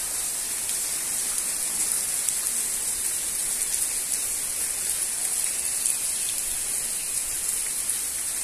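Light rain falling: a steady hiss with a few faint taps.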